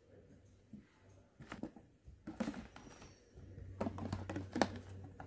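Button mushrooms handled in a thin plastic punnet: light, scattered taps and rustles of the plastic as they are picked out and moved, busier in the second half.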